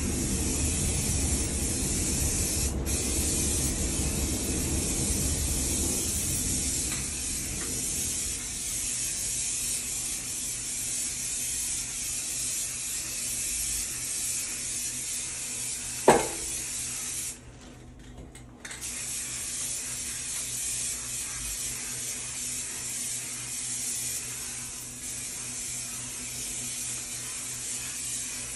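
An aerosol can of bathtub paint spraying in a long, steady hiss, with a very short break near the start and a pause of about a second and a half past halfway. A single sharp knock, the loudest moment, comes just before that pause.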